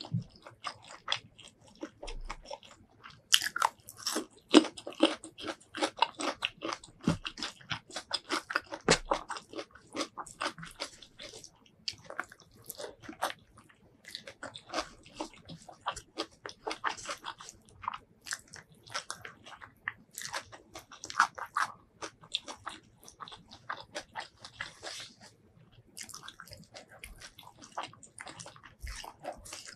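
Close-miked chewing and biting of mouthfuls of curry and rice eaten by hand: a dense run of short wet clicks and crackles, busiest in the first third.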